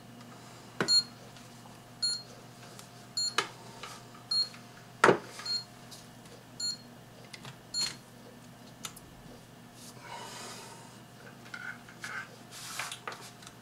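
Computer power supply tester beeping, short high beeps about once a second: its alarm for a missing +5 V standby voltage after the violet standby wire was cut. The beeping stops about seven seconds in, among clicks and knocks of the connector and wires being handled, the loudest about five seconds in, then a rustle and a few more clicks.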